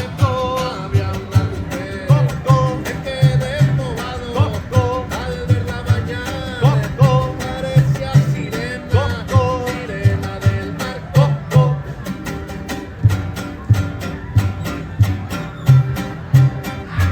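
Music: a singer with guitar over a steady, bouncing bass line, the voice dropping out about twelve seconds in while the instruments carry on.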